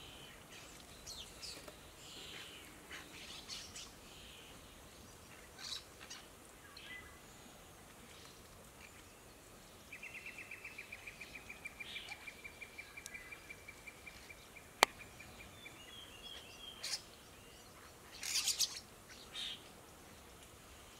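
Starlings calling at a bathing spot with scattered short chirps and harsh notes, and a rough burst of calls near the end. About halfway through, a steady pulsing trill runs for about six seconds. A single sharp click, the loudest sound, comes near the end of the trill.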